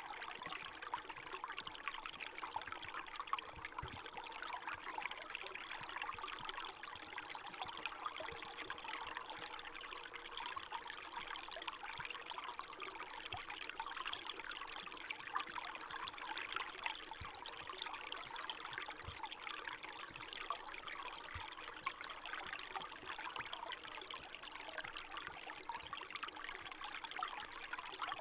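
Small winter forest stream flowing and trickling steadily between snowy banks and thin ice, a continuous babbling water sound.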